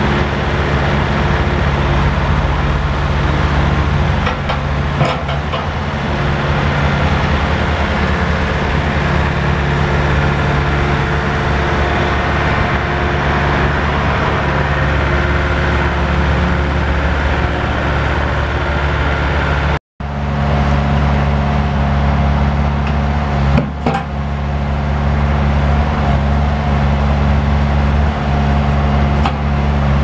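Diesel engine of a Wacker Neuson 8003 compact excavator running steadily while the boom and bucket are worked, with a few short sharp knocks. The sound cuts out for a moment about two-thirds of the way through.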